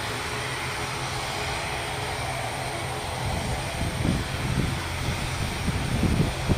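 ATR 72-500 turboprop's two Pratt & Whitney PW127 engines and propellers running at taxi power, a steady drone. From about halfway through, uneven low rumbling surges join in.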